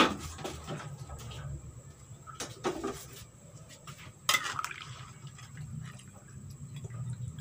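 Metal ladle clanking and scraping against a frying pan while stirring a pan of fish-head soup. A loud clank comes right at the start and another about four seconds in, with lighter knocks between, over a low steady rumble.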